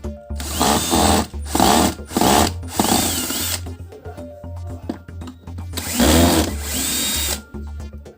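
Cordless drill-driver running in about five short bursts, its motor whirring up and down in pitch as it backs out the screws of a vacuum cleaner's housing.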